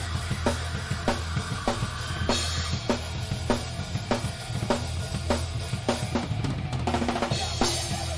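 A rock drum kit played live with a steady kick-and-snare beat, about two hits a second, and crash cymbals about two seconds in and again near the end, over the rest of the band's bass and guitars.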